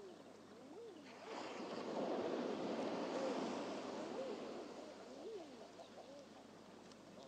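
A wave surging up the beach and draining back, building about a second in and fading after a few seconds. Behind it runs a string of short rising-and-falling cooing tones, about one a second.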